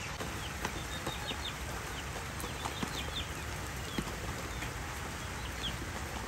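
Chicks peeping: short, high chirps scattered throughout, over a steady low background noise.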